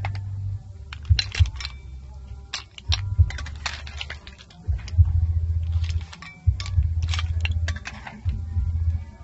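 Snail shells and a metal spoon clicking and clinking irregularly against a pan and a china plate as stir-fried snails are scooped out. A low hum comes and goes underneath.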